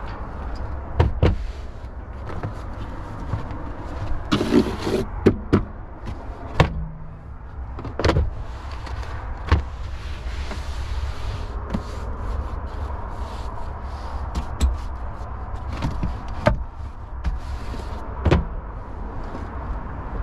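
About a dozen sharp clicks and knocks from the body hardware of a 2018 Jeep Wrangler as its rear swing gate and cargo area are handled, some close together about a third of the way in and the rest spaced a second or more apart, over a steady low rumble.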